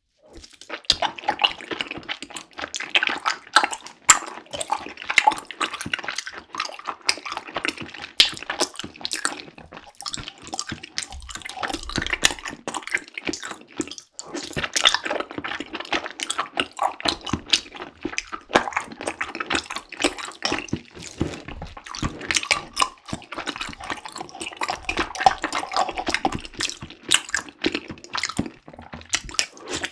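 Close-miked wet, sticky chewing of tapioca pearls: a dense run of small squelches and clicks, pausing briefly twice.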